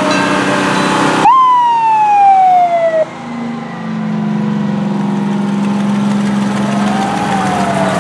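Fire truck siren sounding and falling steadily in pitch, then cutting off abruptly about three seconds in. A truck engine then runs steadily, and near the end a siren briefly rises and falls again.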